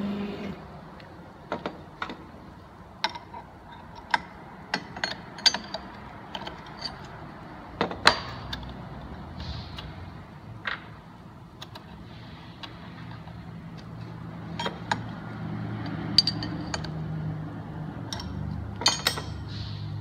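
Scattered sharp metal clinks and clicks of spanners on the router spindle's collet nut and tools being handled during a manual tool change, the end mill taken out and a V-bit fitted. A low steady hum comes in about two-thirds of the way through.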